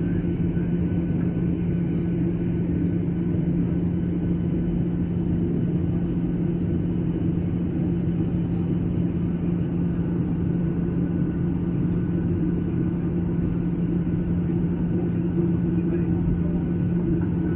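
Steady cabin noise of a jet airliner in flight: engine and airflow rumble with a constant low hum.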